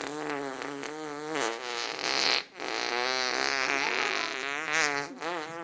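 Two long, wavering, pitched bodily noises of the kind children make for a laugh. The first lasts about a second and a half. The second follows a short break and lasts about two and a half seconds.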